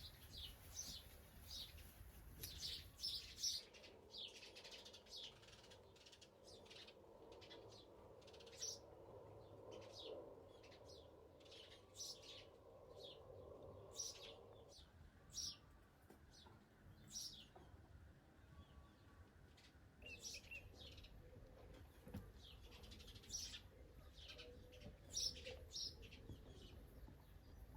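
Small birds chirping faintly: short, scattered high calls that come irregularly over a quiet background.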